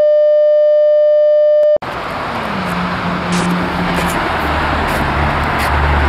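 A steady broadcast test-card tone that cuts off sharply about two seconds in. Then the steady rush of vehicle and road noise with a low hum, as from inside a moving car, with a few faint clicks.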